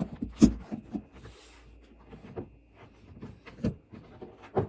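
Handling noise: a series of short knocks and rustles as the camera is set up by hand and the laptop screen is pushed into place, the loudest knock about half a second in.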